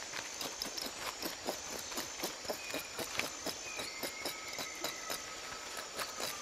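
Outdoor jungle ambience: irregular sharp clicks and crackles several times a second, with high thin insect tones that come and go and a short whistle gliding down in the middle.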